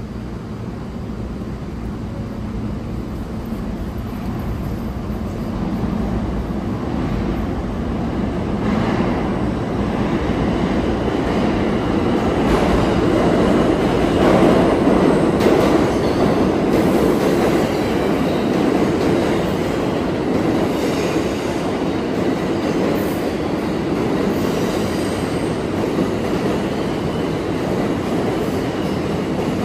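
New York City subway train running through the station, its rumble growing louder over the first half and staying loud, with the clatter of its wheels over the track and a faint high squeal at times.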